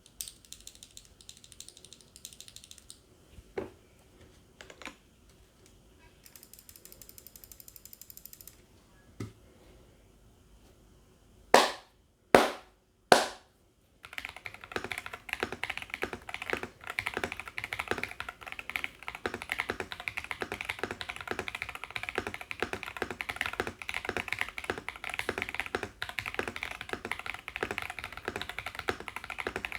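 Mechanical keyboard: an Everglide SK68 gasket-mount board with KTT Cabbage Tofu switches, an aluminium plate, poron foam and PBT keycaps. A few single key clicks come first, then three much louder knocks about halfway through. From just under halfway on there is fast, continuous typing.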